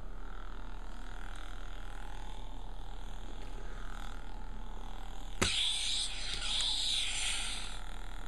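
Force FX replica lightsaber humming steadily, then a sudden crack about five and a half seconds in followed by a hissing burst lasting about two seconds.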